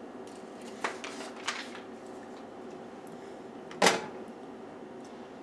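Plastic vitamin C jar being handled, with two light clicks, then one sharp knock just under four seconds in as the jar is set down on the kitchen countertop. A low steady room hum runs underneath.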